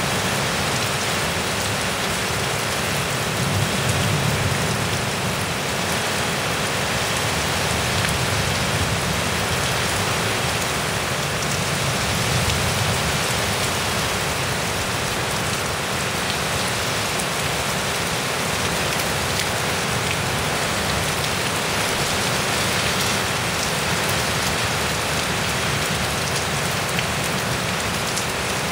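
Heavy rain pouring down in a severe thunderstorm, a steady even hiss of rain on surfaces, swelling slightly about four seconds in.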